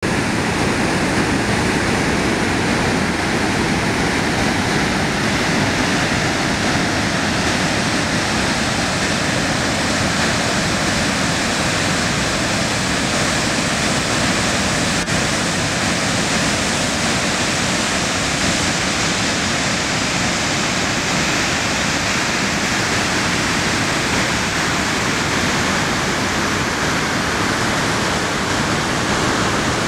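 Goðafoss waterfall: a loud, steady rush of falling water that does not change.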